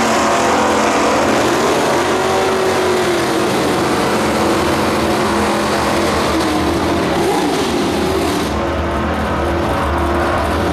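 Two 1960s drag-racing cars at full throttle, running hard down a drag strip in a quarter-mile pass. Their engine notes rise and dip in pitch as they pull away.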